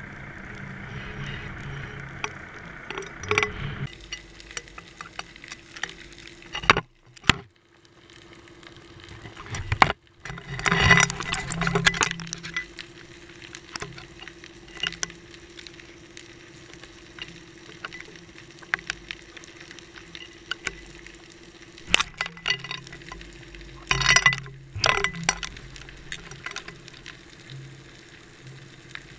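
Underwater noise picked up through a GoPro's waterproof housing as it hangs on a fishing line: irregular crackling clicks and knocks over a faint steady hum. Two louder stretches of dense crackling come about a third of the way in and again past the middle.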